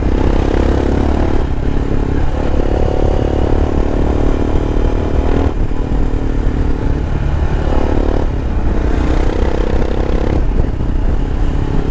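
Royal Enfield Himalayan's 411 cc air-cooled single-cylinder engine running while the bike is ridden through traffic. Its note breaks off and picks up again a few times over a heavy low rumble.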